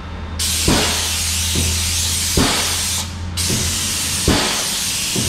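Airless spray gun spraying black-tinted undercoating oil onto a rusted truck underbody: a loud hiss in two long bursts with a short pause about three seconds in. A low hum and a few dull knocks sound underneath.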